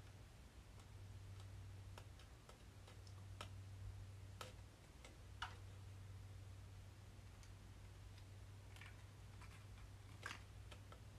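Faint, irregular clicks and small taps from a plastic squeeze bottle of craft paint being squeezed and dotted onto paper cards, two of them a little sharper, over a low steady hum.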